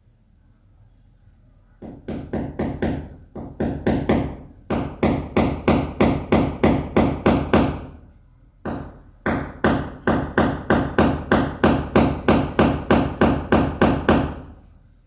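Hammer striking repeatedly in two quick runs of about four blows a second, with a short pause between, driving a fastener in to hang artwork.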